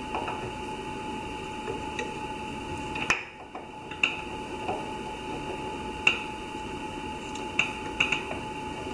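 Metal change gears of a Sieg SC4 lathe's gear train clicking and clinking as they are handled and fitted by hand: about eight sharp clicks, the loudest about three and six seconds in, over a steady hum.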